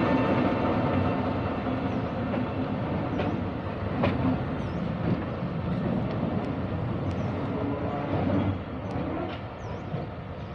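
D20E diesel-electric locomotive running on the track, with engine hum and now and then a wheel clack over a rail joint. The sound fades steadily as it draws away.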